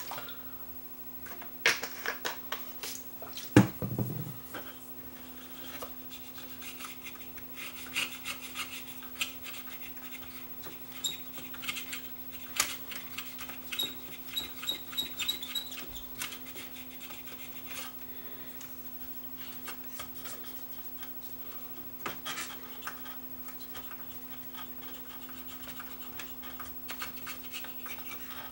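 Hand cleaning of a cassette deck's rubber pinch roller and head: on-and-off rubbing and scraping with small clicks. One louder knock comes a few seconds in, over a steady low hum.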